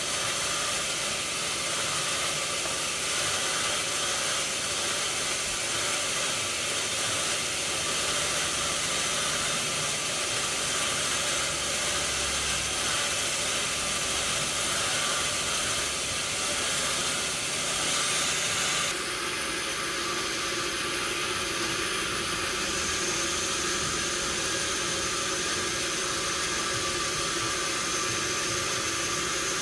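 Sawmill saw and machinery running steadily, a loud hissing noise. The sound changes abruptly about two-thirds of the way through.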